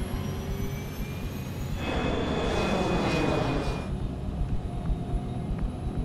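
Steady low rumble of a jet airliner in flight. A rushing whoosh swells about two seconds in and fades out by about four seconds.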